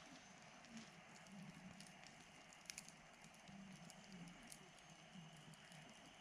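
Campfire crackling faintly: scattered sharp pops and ticks of burning wood over a quiet steady hiss.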